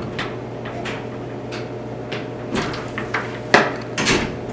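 A glass entry door being pushed open: a few knocks and footsteps, then a sharp clunk of the door hardware about three and a half seconds in as the door swings open and someone steps through. A steady low hum runs underneath.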